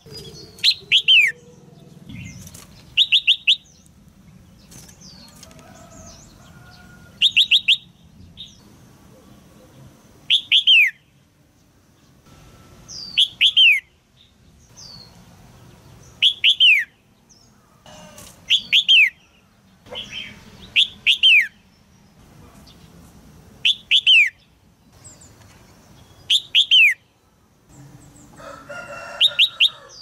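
Female red-whiskered bulbul giving harsh 'jiak' chirps in quick clusters of two to four falling notes, repeated about every three seconds.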